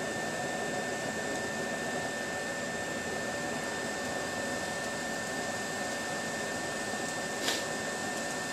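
BioLite CampStove's battery-powered fan blowing air into its wood fire: a steady whirring rush with a constant high whine, and one short tick near the end.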